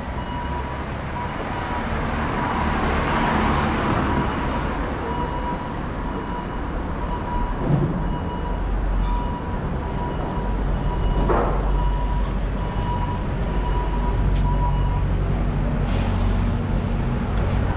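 Street traffic on a city road. Near the end a double-decker bus pulls up, its engine running low and steady, with a short hiss of air brakes.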